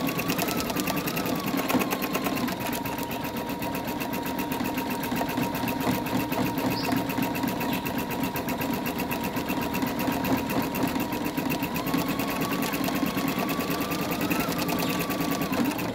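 Embroidery machine stitching lettering into a terry face washer: a rapid, even rattle of needle strokes over a steady motor whine that shifts slightly in pitch as the hoop moves. It cuts off abruptly at the end.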